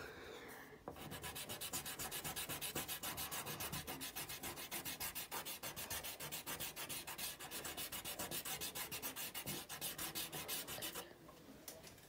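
Black oil pastel rubbed rapidly back and forth on notebook paper, about six scratchy strokes a second, shading in a solid area. The rubbing stops about a second before the end.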